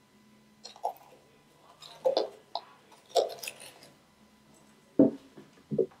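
A small plastic scoop scraping and crunching into bicarb soda powder in a plastic jar, with short plastic clicks and rustles, and one sharper, louder knock about five seconds in.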